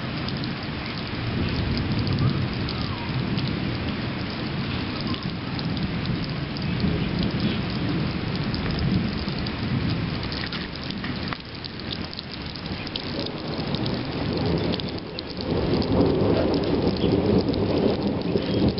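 Steady rain falling, with thunder rumbling continuously underneath; the rumble grows louder in the last few seconds.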